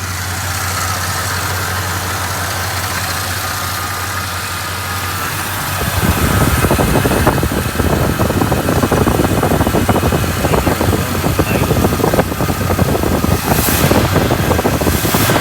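1966 Ford Galaxie 7 Litre's 428 V8 idling rough. About six seconds in it gets louder and choppier, with a dense, uneven pulsing.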